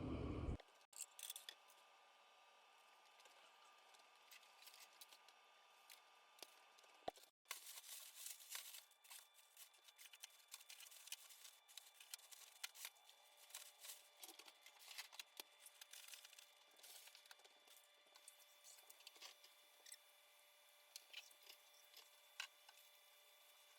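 Faint, scattered clicks and light clinks of dishes and kitchen items being handled and put away, over near-silent room tone.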